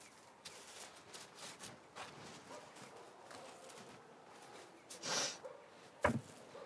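A dog sniffing and rustling faintly, with a short hissing breath about five seconds in and a sharp knock about a second later, the loudest sound.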